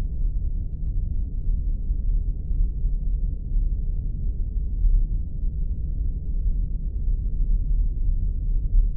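Spaceship ambience sound effect: a steady deep rumble, nearly all low bass, wavering slightly in loudness.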